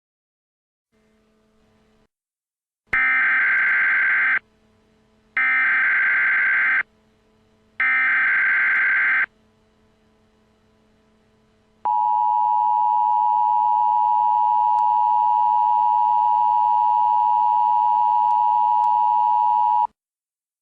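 Emergency Alert System broadcast: three short bursts of SAME header data, a digital warble sent three times, then a few seconds later the steady two-tone EAS attention signal held for about eight seconds. Together they signal that an emergency alert message is about to be read.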